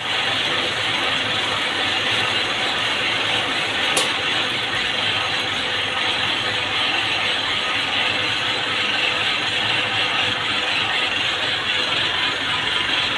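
Rows of thread-winding machines running together, their fast-spinning bobbins and drives making a loud, steady mechanical noise. A single sharp click comes about four seconds in.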